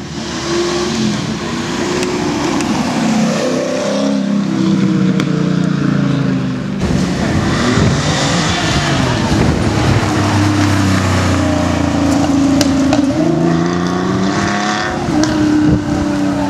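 TVR sports car engines accelerating hard, one car after another, with revs climbing and dropping through gear changes. The first is a TVR V8 roadster, and an abrupt cut about seven seconds in brings in another TVR pulling away.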